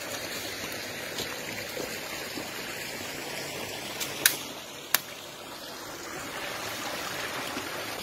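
A shallow forest stream running over rocks, a steady rush of water. Two sharp clicks stand out a little past the middle.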